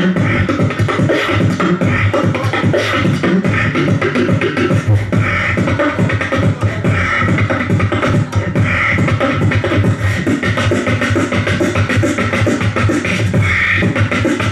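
Human beatboxing amplified through a handheld microphone and PA: an unbroken run of fast mouth-made drum sounds over a heavy bass.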